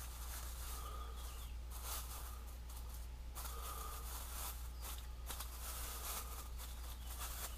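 Clear plastic wrapping crinkling and rustling in the hands as a small spinning reel is unwrapped, in irregular spells of crackle.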